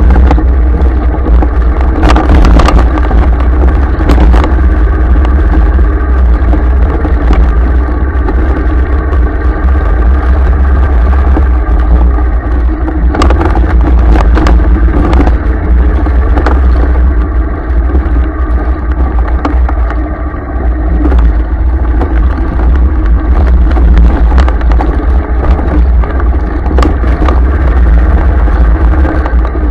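A motor vehicle's engine running steadily as it drives over a rough dirt track, with a heavy wind rumble on the microphone and scattered knocks and rattles from the bumps.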